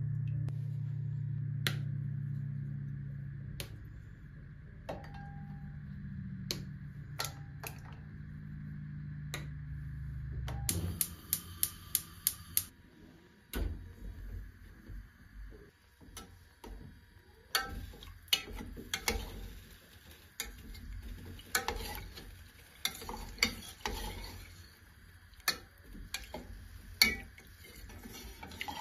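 Kitchen work: a steady low hum with a few clicks stops suddenly about ten seconds in. After a quick run of even clicks, a utensil clinks, knocks and scrapes against a bowl or pot, as in stirring.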